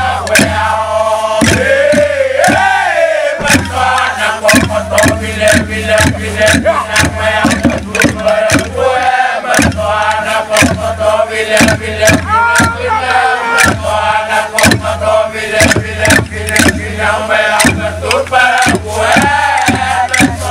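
A group of men chanting in unison over a steady beat of struck bamboo tubes, the traditional Tolai accompaniment for Tubuan masked dancing.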